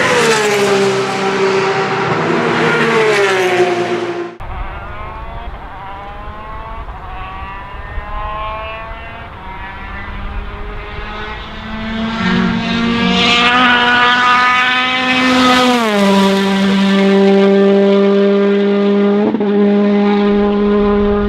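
Peugeot 208 T16 R5 rally car's turbocharged 1.6-litre four-cylinder engine under hard driving. A loud engine note sags and cuts off abruptly about four seconds in. A quieter note then climbs through the revs, swells louder and higher, drops sharply about three quarters of the way through, and holds a steady high note to the end.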